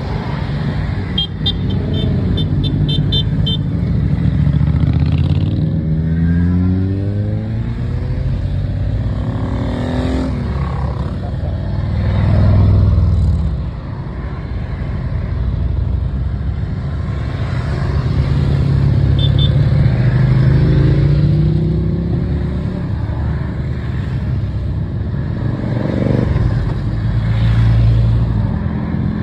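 A procession of motorcycles riding past one after another, their engines rising and falling in pitch as each one passes. The loudest pass comes about twelve seconds in.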